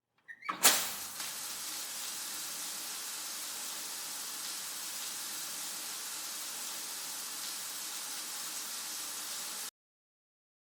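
A brief clatter, then a steady rush of spraying water that cuts off suddenly near the end.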